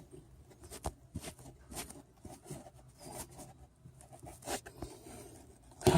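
Handling noise: scattered light clicks and scrapes at an irregular pace, a sharper click about a second in, over a faint low hum.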